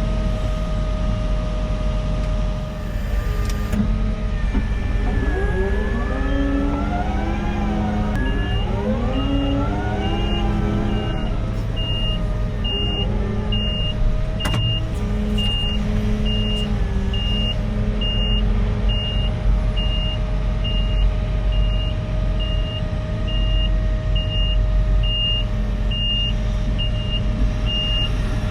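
Heavy construction machinery running steadily, with rising and falling whines between about 5 and 11 seconds in. From about 8 seconds in, a reversing alarm keeps up a steady run of high beeps.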